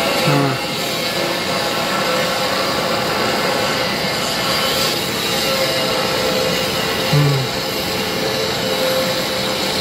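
Jet airliner engines running steadily: a dense roar with a high, steady whine layered over it. Two brief low tones sound, one right at the start and one about seven seconds in.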